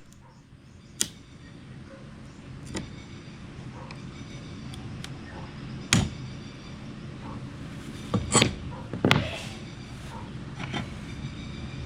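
Sharp clicks, cracks and knocks of cut float glass being worked by hand, with pieces snapped and broken away along the score. The loudest cracks come about six seconds in and twice around eight to nine seconds in.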